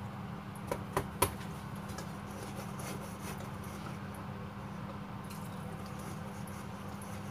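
Thick chocolate cake batter being stirred by hand in a stainless steel bowl, with three sharp clicks of the utensil against the bowl a little under a second in, the last the loudest. A steady low hum runs underneath.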